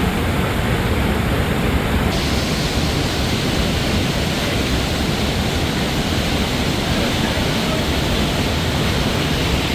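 Rushing water of the Sheep River Falls heard up close, a loud, steady, even rush with no let-up. It turns brighter and hissier about two seconds in.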